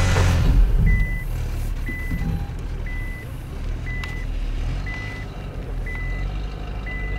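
A car's reversing warning beeper, one short high beep about every second, over a low engine hum. A louder rush of engine and tyre noise dies down about a second in.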